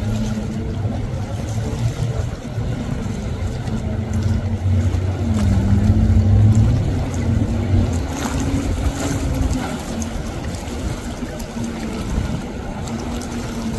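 Boat engine droning steadily, its pitch dipping and climbing back about five seconds in, over a constant rush of noise.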